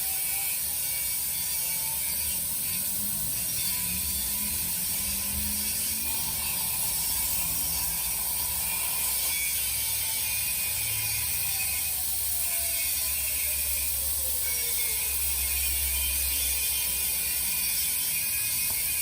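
CNC plasma cutter cutting 1 mm steel plate: a steady high hiss with mechanical running, and a faint whine that slides slowly up and down in pitch.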